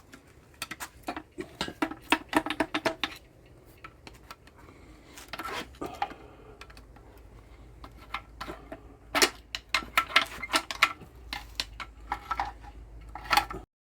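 Hand ratchet wrench clicking in quick runs as fasteners are backed out, with scattered clinks of metal tools and parts.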